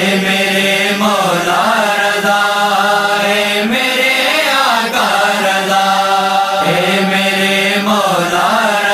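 Wordless devotional vocal chanting. The voices slide up and down in long phrases over a steady, held low drone.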